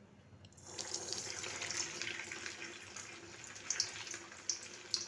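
Bread-coated egg ball sizzling as it fries in hot oil, the sizzle starting about half a second in, with occasional sharp pops.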